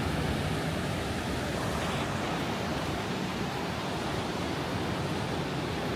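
Steady rushing wash of surf on a sandy beach, mixed with wind.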